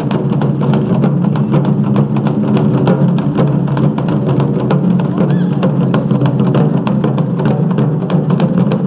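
Taiko drum ensemble playing: a fast, unbroken stream of stick strikes on the drum heads over a deep, full drum body.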